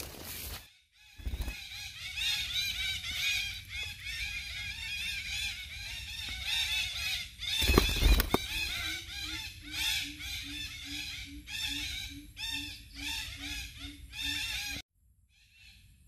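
Red-breasted parakeets calling: a dense chatter of many short, arched squawks. About eight seconds in there is a loud thump, and from then on a low note repeats about two to three times a second until the sound cuts off suddenly near the end.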